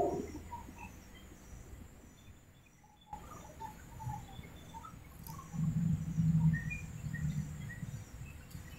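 Outdoor ambience: birds chirping in many short, scattered calls, with a low rumble that swells for a couple of seconds past the middle.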